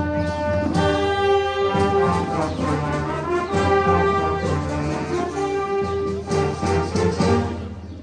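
Concert wind band playing, brass and saxophones, in held chords that change every second or so. The piece closes and dies away near the end.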